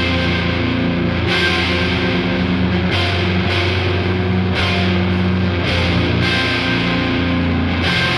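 Heavy rock music with guitar, sustained chords that change every second or so.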